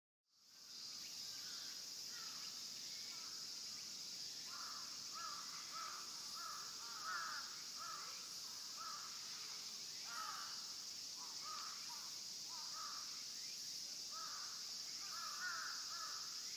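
Outdoor park ambience fading in: crows cawing in repeated runs of short calls over a steady high insect buzz.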